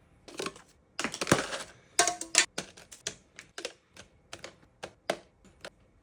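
A quick series of sharp clicks and taps. They come thick and fast for about a second and a half, then thin out to single taps before stopping near the end.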